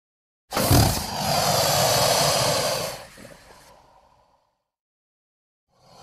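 Giant crocodile movie-creature roar sound effect: it starts suddenly about half a second in, holds harsh and rasping for about two seconds, then fades away over the next second or so. Another creature sound begins just before the end.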